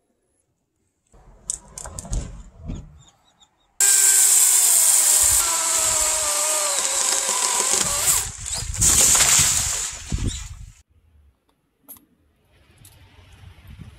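Chainsaw running at high revs for about four seconds, its pitch sagging as it cuts into the wood, then a second shorter run. A few knocks come before it.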